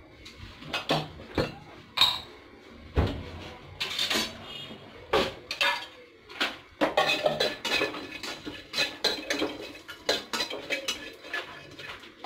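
Kitchen utensil clatter: a steel container clinking and a spatula knocking and scraping as dried coconut pieces are stirred in a nonstick kadai. It comes as a string of sharp knocks and scrapes, busiest in the second half.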